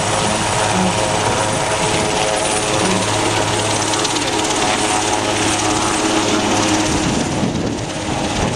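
Airbus transport helicopter flying past and climbing away, its rotor and turbines making a steady mechanical drone. Near the end the low part of the sound drops out and it thins as the helicopter moves off.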